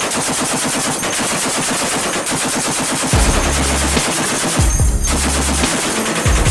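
Shielded heavy machine gun on a ship's deck mount firing sustained rapid fire, a steady run of evenly spaced shots, with heavier low booms coming and going from about halfway through.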